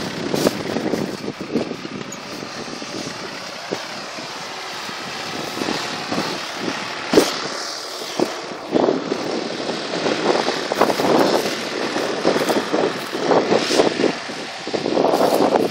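Tractor engine running as it pulls a plow through the field, heard under wind buffeting the microphone in irregular gusts.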